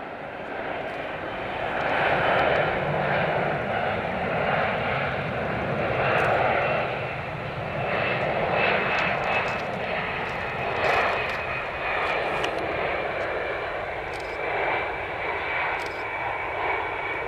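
Boeing 747-400 jumbo jet on final approach, its four jet engines running as a broad, loud rumble with a thin high whine that slowly drops in pitch. The sound swells in the first couple of seconds and then holds steady.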